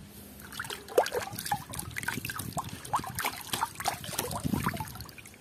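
A hand swishing and splashing in a plastic tub of water while rinsing a small plastic toy, with lots of small drips and plops, starting about half a second in.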